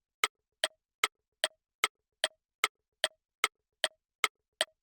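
Ticking-clock countdown sound effect: evenly spaced sharp ticks, about two and a half a second, each with a brief ringing tone. It marks the thinking time for a find-the-character quiz.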